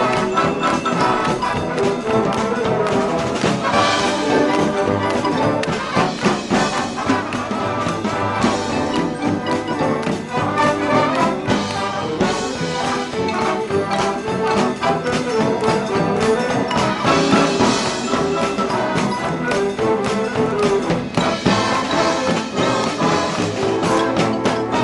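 A marching band playing live: brass led by trumpets and trombones over drums and percussion.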